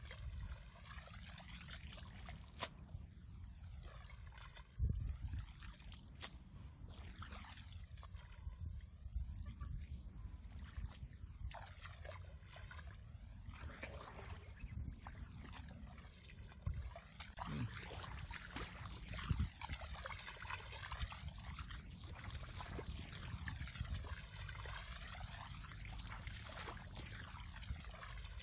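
Shallow muddy water trickling and splashing as people wade and dig in a flooded ditch, with a few dull low knocks. The whole sound carries a slow, repeating sweeping swish.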